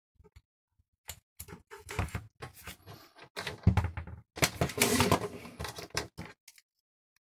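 Handling clatter: a quick, irregular run of clicks, knocks and rustles as test meters and their leads are handled on a desk, busiest about four to six seconds in and stopping abruptly near the end.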